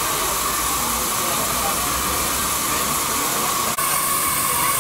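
Steady hiss of steam escaping from a live-steam miniature locomotive, broken only by a brief drop about four seconds in.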